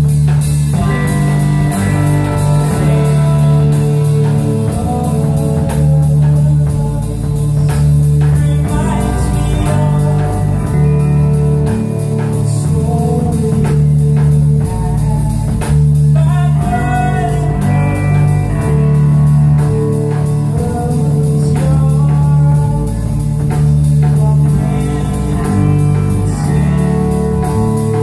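Live band playing a song with drums and guitar, and a man singing over it.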